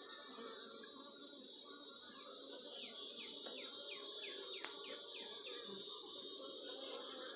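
Steady high-pitched chorus of evening insects, with a bird giving a run of about ten quick down-slurred whistles in the middle. A fainter low hum runs beneath.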